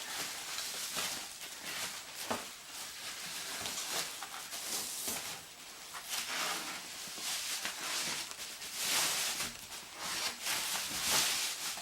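Continuous rustling and crinkling of packaging being handled, with uneven swells and short scrapes, as a leather handbag is lifted out of its box.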